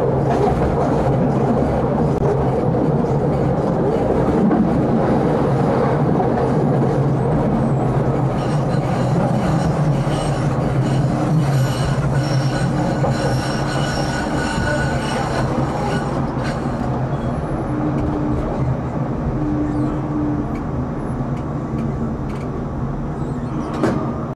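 Tram running on its rails, heard from inside the driver's cab: a steady rumble of wheels and running gear. About eight seconds in, a set of high ringing squeal tones comes in for several seconds as the wheels take a curve. Toward the end the running sound eases as the tram slows into a stop.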